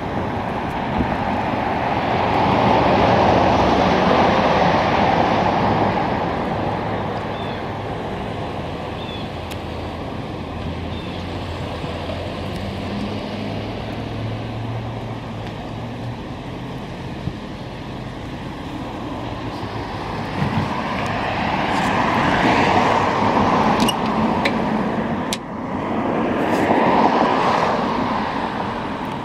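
Road traffic going by: the sound of passing vehicles swells and fades slowly, loudest a few seconds in and again twice near the end, with a couple of sharp clicks late on.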